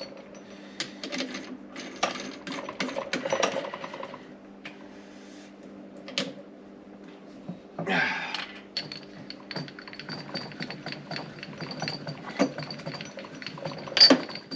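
Small metal hinge parts clinking, knocking and scraping as they are handled and positioned, with a sharp knock about two-thirds of the way through and another near the end. A steady electrical hum runs underneath.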